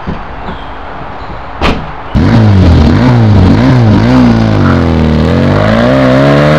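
A sharp click, then about two seconds in an old car's engine starts and revs loudly, its pitch rising and falling several times.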